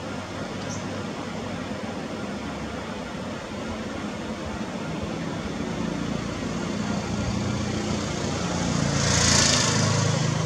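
A steady background hiss, with a motor's low hum that builds up and is loudest about a second before the end, then eases off.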